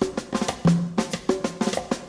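Background music with a busy drum beat: quick, regular drum hits over a few pitched instrument notes.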